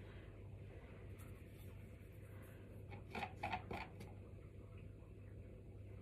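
Faint handling sounds of cake pops and lollipop sticks being worked over baking parchment and a plastic cup of melted chocolate: a quick cluster of light ticks and rustles about three seconds in, over a low steady hum.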